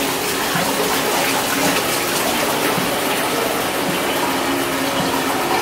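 Steady rush of running, splashing water from aquarium tank filtration and water circulation.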